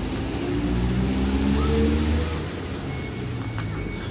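A road vehicle driving past close by, its engine note rising as it accelerates. It is loudest about two seconds in, then fades.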